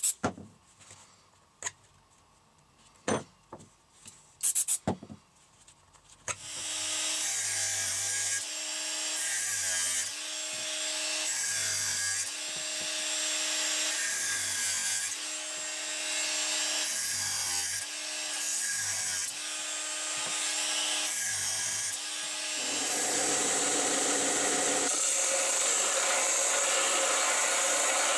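A few light clicks and knocks, then from about six seconds in a Greenworks angle grinder runs and cuts at a small wooden block, its note dipping and recovering every couple of seconds as the disc bites. Near the end it gives way to a belt sander running steadily as the wooden block is sanded on the belt.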